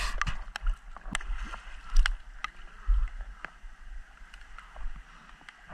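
Sea water sloshing and splashing close to the microphone as people wade and swim through shallow water, opening with a short rush of splashing. Scattered sharp clicks and knocks and a low rumble run underneath.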